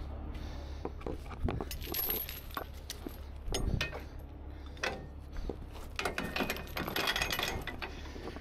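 Steel recovery chain clinking and rattling as its links are handled and dragged over a truck's metal lift gate, with a dense run of rapid clinks near the end. A steady low hum runs underneath.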